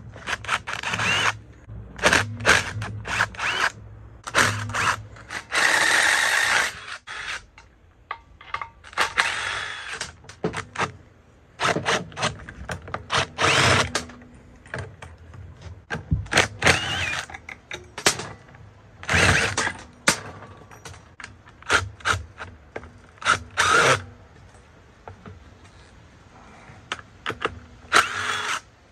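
Cordless power driver running in short bursts, a second or two at a time, over and over as it backs screws and nuts out of a large DC electric motor's end plate and terminal studs.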